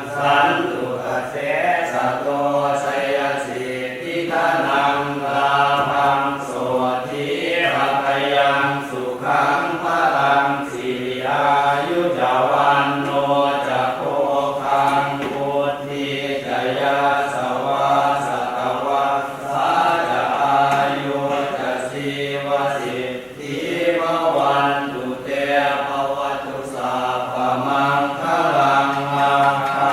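Thai Buddhist chanting of Pali verses, a steady unbroken recitation with short dips between phrases.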